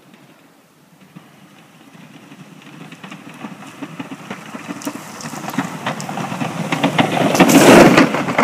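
Pickup truck with a V snowplow approaching while plowing, its engine rumble growing steadily louder. Near the end it passes close by, with a loud hiss of snow thrown off the plow blade.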